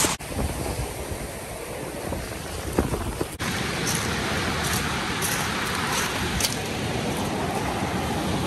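Ocean surf washing up a sand and pebble beach: a steady hiss of water and foam. It breaks off abruptly twice.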